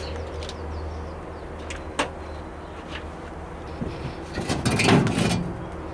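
A sharp click about two seconds in, then a rattling, scraping clatter between four and five seconds in, as of an old cab door being opened and worked, over a steady low hum.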